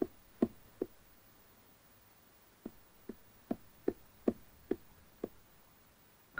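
Cartoon footstep sound effects of a small duckling walking: short soft taps, about two to three a second. They come in two runs with a pause of about two seconds between.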